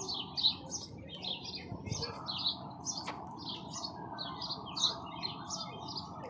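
Baby bird cheeping over and over, short high chirps at about three a second. A single sharp click about three seconds in.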